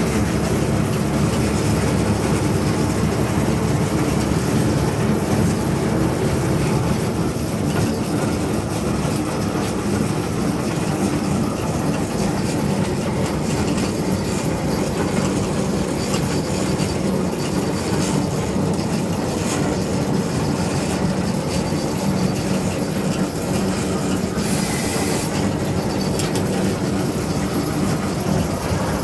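Narrow-gauge Gemco locomotive and its train running steadily along the track, with a continuous low engine drone. A brief high hiss cuts in near the end.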